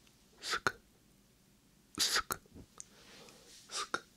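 Whispered 'sk-sk' mouth sounds, made close to a binaural microphone: three breathy hisses, each cut off by a sharp click of the tongue.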